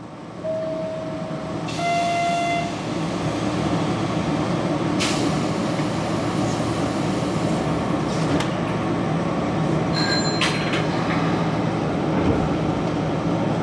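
Electric commuter train running, a steady rumble and hum, with two short beeping tones near the start and a few brief clicks and squeaks later.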